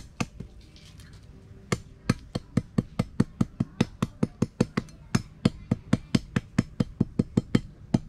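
Machete blade chopping rapidly and lightly into the end of a thin bamboo stick lying on concrete, about five strokes a second, starting after a short pause of about a second and a half. The chopping cuts a notch in the stick's end so the binding cord can be wound on more easily.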